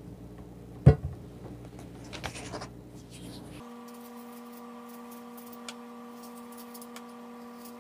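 Kitchen knife cutting into an apple: a sharp knock about a second in, then faint scraping and cutting sounds. About halfway through a steady hum of several even tones comes in suddenly and holds, with a few faint ticks over it.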